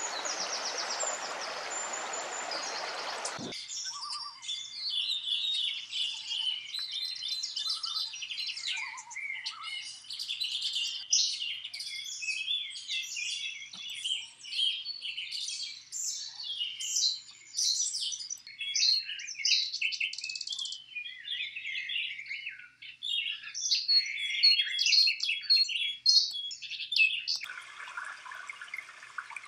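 A mountain creek rushes for about three seconds and cuts off abruptly. A dense chorus of small songbirds follows, many overlapping chirps and trills. Near the end a steady hiss of running water returns.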